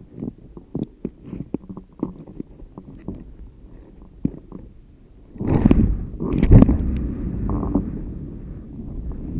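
Wind buffeting the microphone of a GoPro camera on a kite aerial rig. Scattered light knocks and clicks from the swinging rig come first, then loud gusts of wind from about five seconds in as the camera is carried aloft.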